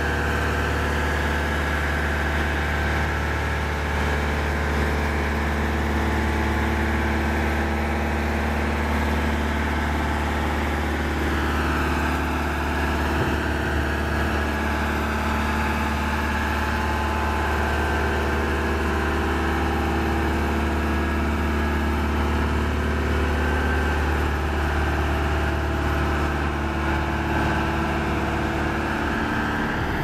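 Diesel engine of a Genie Z-135/70 boom lift running steadily at an even speed while the boom is swung and lowered.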